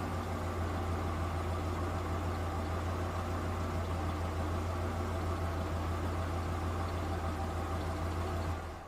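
A vehicle engine idling with a steady low drone, fading out near the end.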